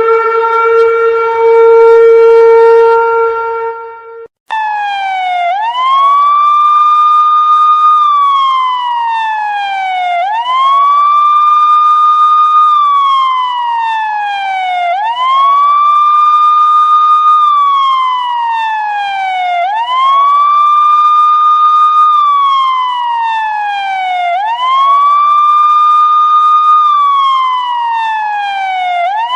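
A long, steady horn-like tone cuts off about four seconds in. A wailing siren follows, its pitch rising quickly, holding high for about two seconds, then falling slowly, about once every five seconds.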